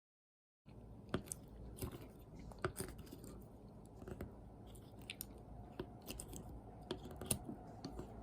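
Someone eating the finished lasagna: close-up chewing with scattered sharp clicks. It starts just under a second in, after dead silence.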